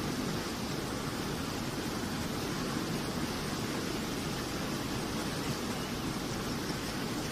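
Fast-flowing muddy water rushing steadily down an earth channel, an even hiss with no breaks.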